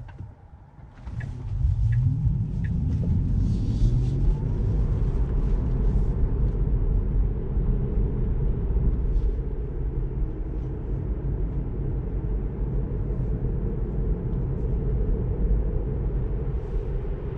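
Tesla Model 3 driving: a rising whine in the first few seconds as it picks up speed, then a steady low road rumble.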